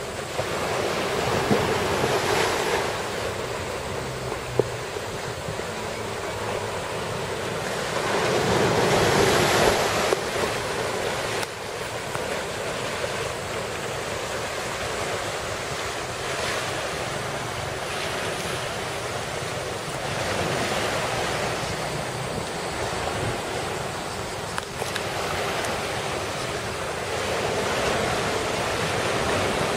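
Rough surf whipped up by a typhoon: waves rush in as a steady roar that swells louder every several seconds, with wind blowing over it.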